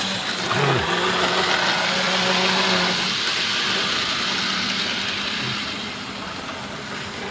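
Model trains running on a layout: the steady whirr of small electric motors and wheels on the rails, with a steady hum through the first few seconds. It gets quieter over the last couple of seconds.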